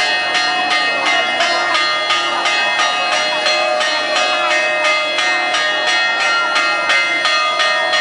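Church bells pealing in rapid, even strokes, about three a second, their tones ringing on over one another.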